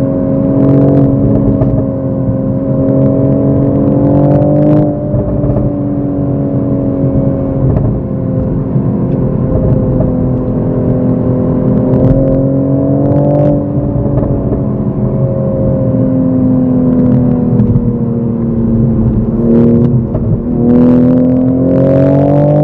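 Toyota GR Supra MK5 engine heard from inside the cabin while driving in sport mode with manual shifting. The revs climb gradually and drop back several times, then climb again near the end, with a few brief crackles.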